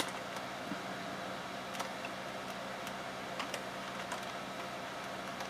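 A few scattered keystrokes on a computer keyboard, well apart from one another, over a steady low hum.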